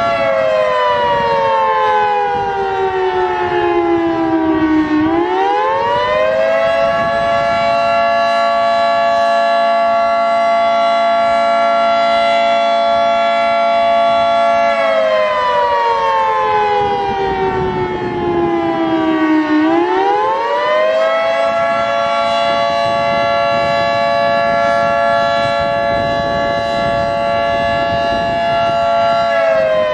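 Federal Signal 3T22 three-tone outdoor warning siren sounding the attack signal. Its chord falls in pitch for about five seconds, swoops back up and holds steady for several seconds, then does the same again, and begins to fall once more near the end.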